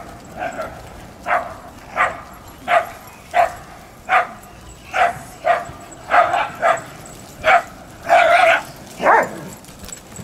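A dog barking repeatedly, about one bark every two-thirds of a second, with a longer run of barks near the end and a last bark that falls in pitch.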